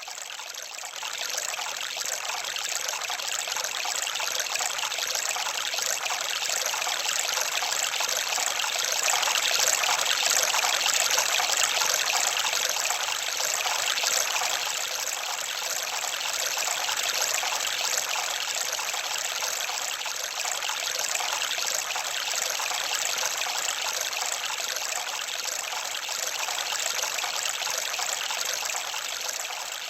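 Running water trickling steadily, an even splashing rush with little low rumble.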